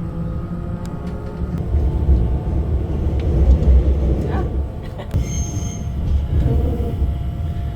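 Train running on the rails, a steady low rumble that grows louder about two seconds in, with a brief high tone about five seconds in.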